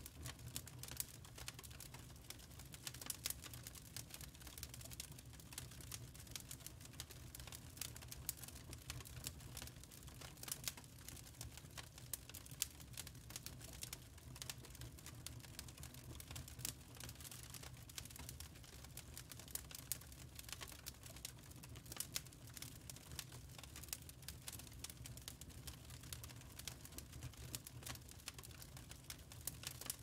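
Wood fire burning in a fireplace, crackling faintly with many small irregular pops and snaps over a steady low hum.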